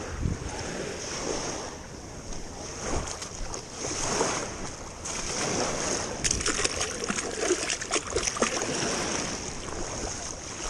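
Sea water splashing and waves lapping around a fishing kayak, with wind on the microphone; a run of sharp splashes and crackles comes about six seconds in and lasts a couple of seconds.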